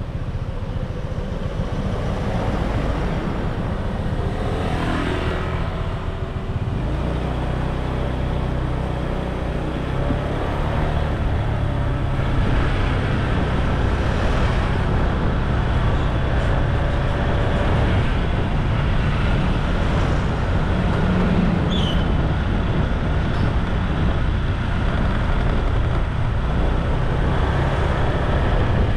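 Street traffic with vehicle engines running, under a steady wind rumble on the microphone from riding along. About five seconds in, one engine revs up in a rising glide.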